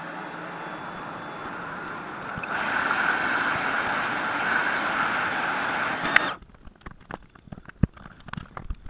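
Hot-air rework station blowing a steady rush of air. It gets louder about a third of the way in, then cuts off suddenly with a click about two-thirds through, leaving a few light knocks and taps.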